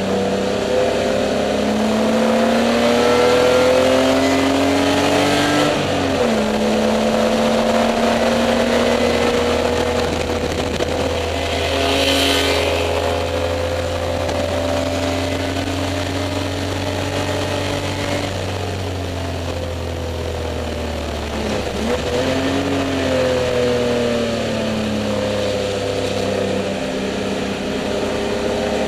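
Spec E30 BMW race car's straight-six engine, heard from inside the car at racing speed. The pitch climbs under full throttle, drops sharply at an upshift about six seconds in, then pulls on. It falls away and climbs again a little past twenty seconds in. A brief hiss comes about halfway through.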